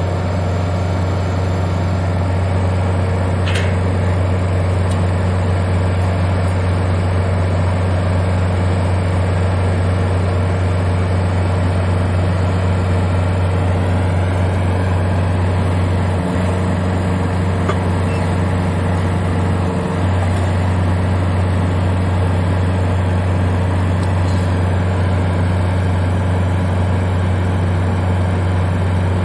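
Crawler pile driver's engine running at a steady speed: a constant low drone with no hammer blows.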